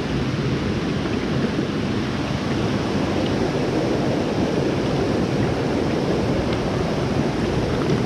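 Mountain stream water rushing steadily over rocks and shallow riffles close by, a constant even rush with no breaks.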